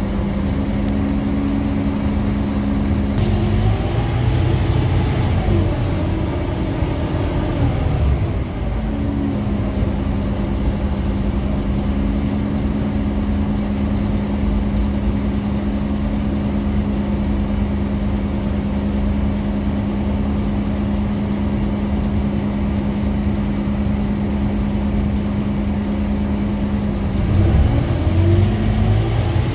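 Scania K310UA articulated bus's five-cylinder diesel engine heard from inside the cabin: a steady idle hum, broken about four to eight seconds in by a short rise and fall in engine pitch as the bus creeps forward and stops again. Near the end the engine note rises as the bus accelerates away.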